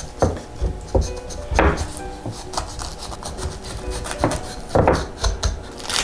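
Kitchen knife scraping through a pomegranate's rind and knocking on a wooden cutting board: a handful of short scrapes and knocks, one longer scrape a little over a second in. Soft background music runs underneath.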